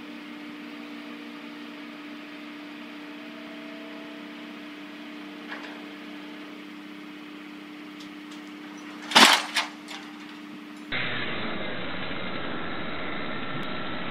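A steady engine hum, then two or three loud, sharp cracks about nine seconds in as a steel lattice electricity pylon comes down. About eleven seconds in it gives way to a louder, dull rushing noise.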